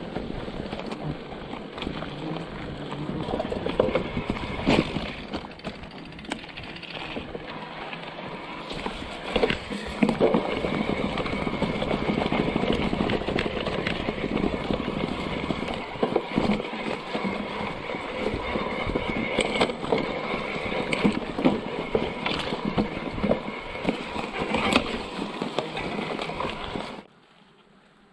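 Electric mountain bike ridden over an overgrown old railway track: tyres rumbling and knocking over sleepers and ballast, the bike rattling with each bump. The sound cuts off abruptly about a second before the end.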